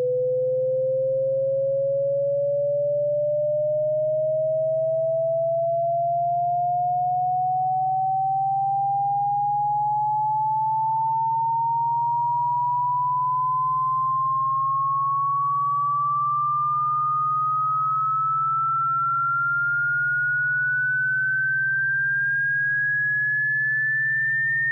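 Electronic pure sine tone sweeping slowly and steadily upward in pitch, from a mid tone to a high whistle-like tone, with a faint steady low hum beneath; a synthetic cat-repellent tone.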